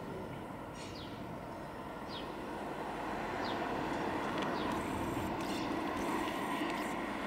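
Jet noise from an Airbus A350-941's Rolls-Royce Trent XWB engines as the airliner passes low overhead on approach. It is a steady roar that grows louder about three seconds in.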